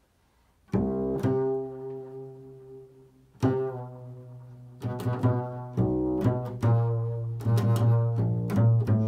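Upright double bass played pizzicato, an improvised line of plucked notes that each ring out and fade. It begins after a short silence with a few widely spaced notes, and the notes come quicker in the second half.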